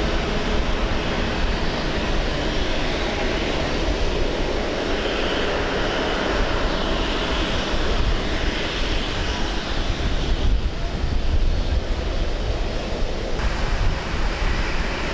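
Jet airliner engines running: a steady rushing noise with a deep rumble underneath.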